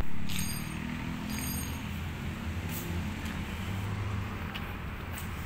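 Isuzu N-Series truck's diesel engine idling with a steady low rumble. Two brief high chirps come in the first two seconds, and a few light clicks come later.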